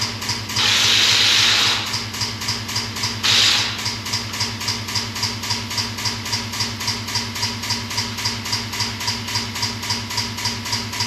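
Straight-piped Peterbilt 389 diesel engine idling with an even pulse of about three to four beats a second. Two loud bursts of hiss break in: a long one about half a second in and a short one about three seconds in.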